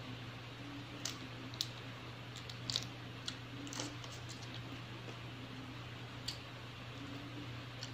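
Prawn shells cracking and clicking as they are peeled by hand: a handful of short, sharp clicks scattered through, with a longer crackle near the middle. A steady low hum runs underneath.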